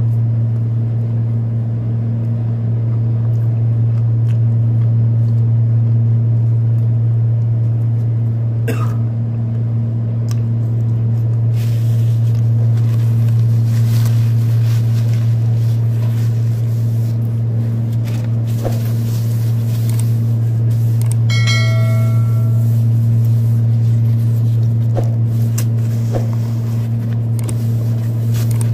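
Window air conditioner running with a loud, steady low hum, and paper napkins rustling in the middle.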